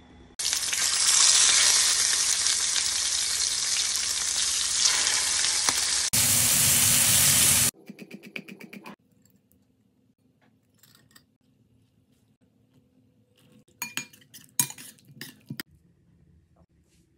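Hot oil sizzling loudly in a stainless skillet as ingredients are tossed in, changing abruptly about six seconds in and cutting off suddenly just before eight seconds. A chef's knife then chops green onions rapidly on a wooden cutting board, followed after a quiet stretch by a few sharp knocks near the end.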